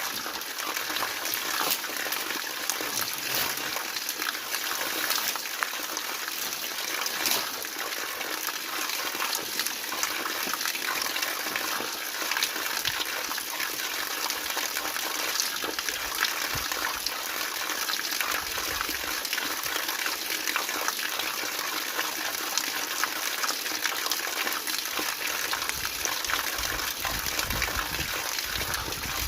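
Waterfall rushing steadily, a constant hiss of falling water, with a few brief clicks over it.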